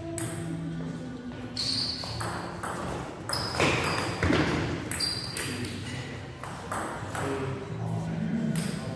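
Table tennis rally: sharp, irregular clicks of the ball striking the rackets and bouncing on the table, each with a short ring in a large hall.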